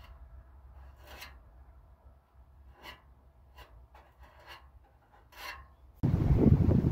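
Five short, separate rasping strokes of something abrasive rubbed by hand across a surface, over a faint low hum. About six seconds in it cuts suddenly to loud wind buffeting the microphone.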